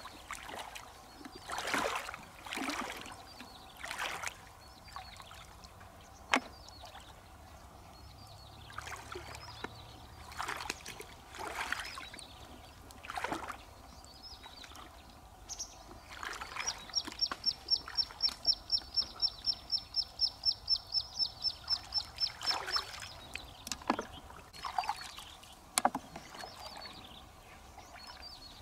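Shallow water splashing and sloshing in irregular bursts as hands and a plastic bucket move through it while someone wades, with two sharp clicks. For about six seconds in the middle, a bird gives a rapid high trill of about five notes a second.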